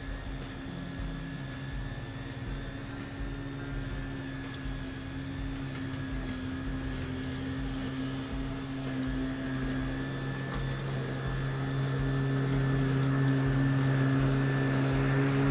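Battery-powered electric push lawn mower running steadily while cutting grass, a low motor-and-blade hum that grows louder as the mower comes closer.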